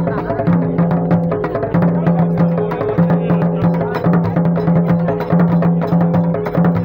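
A group of djembe-style goblet hand drums played together in a fast, dense rhythm for dancing. A low steady tone sounds over it in repeated stretches of about a second each.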